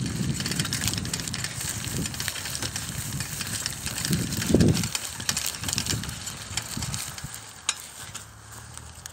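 Bicycle rolling over grass and a gravelly dirt path: tyre noise crackling through the grass, with small rattles and clicks from the bike. A louder low thump about four and a half seconds in, and the noise grows quieter near the end.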